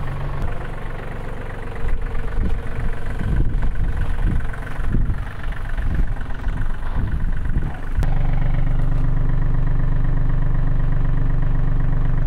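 Compact farm tractor's diesel engine idling steadily. For several seconds in the middle, irregular low thumps and rumbles sit over it. From about eight seconds in, the idle is steady and louder.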